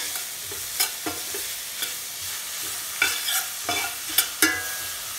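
Sliced onion and green capsicum sizzling in oil in a stainless steel pan while a spatula stirs them, scraping and knocking against the pan several times.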